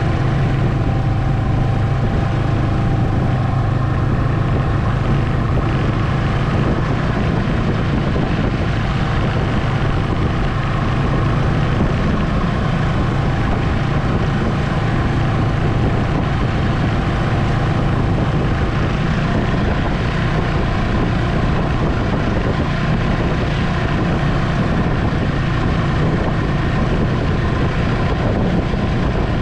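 Ski-Doo Expedition SE snowmobile running steadily at cruising speed, heard from the rider's seat: an even engine drone under a constant rushing noise.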